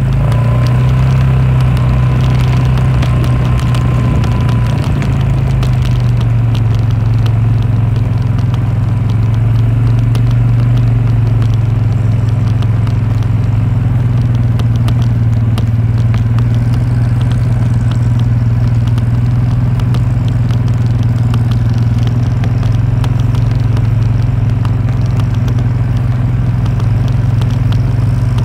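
John Deere tractor engine running steadily at a constant speed, with light rattling from the machine.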